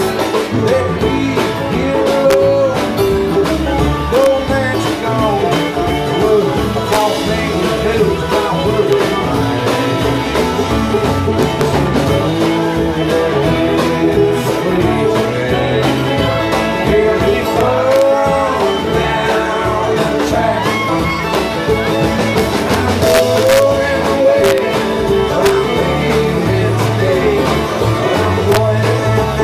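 Live bluegrass band playing: banjo, bowed fiddle, mandolin, acoustic guitar, electric bass and drum kit together at a steady, driving pace.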